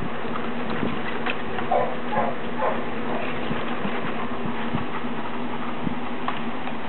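Newborn German shorthaired pointer puppies giving three short squeaks about two seconds in, over a steady hum and hiss.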